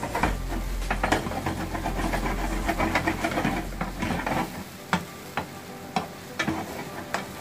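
Prawns and mixed vegetables sizzling as they stir-fry in a non-stick wok, with a wooden spatula scraping and knocking against the pan in irregular clicks.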